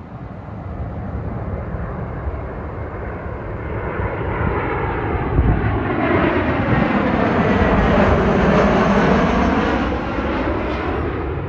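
Airbus A319-111 jetliner's two CFM56 turbofan engines on landing approach, passing low overhead with gear down. The steady jet roar builds to its loudest about two-thirds of the way through, with a sweeping whoosh that shifts in pitch as it goes over, then starts to fade near the end.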